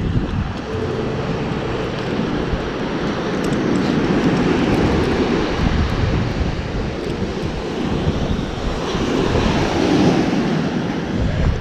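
Wind blowing across the microphone, with the steady wash of breaking surf behind it.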